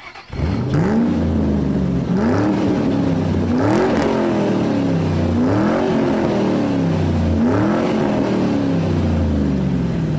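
Car engine revved five times in a row, each rev climbing quickly in pitch and then falling slowly back.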